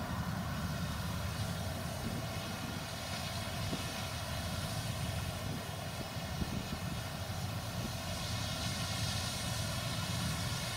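Claas Lexion 770 combine harvester running steadily as it cuts and threshes rapeseed: an even engine drone with a layered whine from the machinery.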